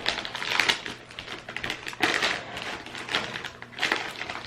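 Potato chip bag being handled and opened: irregular crinkling and crackling of the foil-lined plastic in short clusters.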